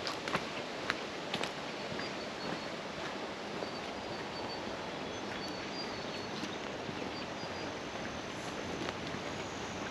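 Footsteps on a bush walking track over a steady background hiss. There are a few sharp steps in the first couple of seconds and scattered ones later. Faint high chirps come through the middle, and a thin high-pitched drone starts near the end.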